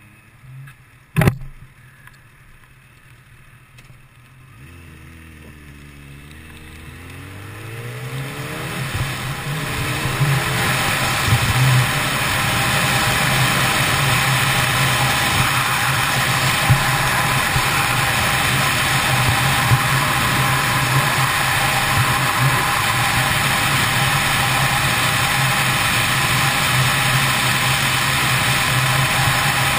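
Kawasaki ZX10R motorcycle pulling away and accelerating, its engine pitch rising through a couple of gears, then running at cruising speed under a steady loud rush of wind on the microphone from about ten seconds in. A sharp click sounds about a second in.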